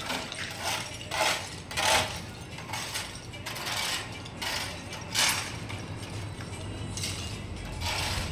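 Repeated short scraping strokes, irregular and about one a second, from hand tools on tiling work.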